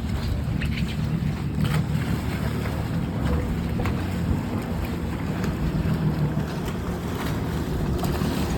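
A watercraft engine running steadily with a low rumble, with wind buffeting the microphone and water splashing and slapping against the hull.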